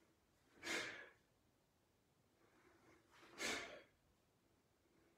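Two forceful exhalations, one with each forward thrust of the fist in a dynamic qigong exercise, each about half a second long and some two and a half seconds apart.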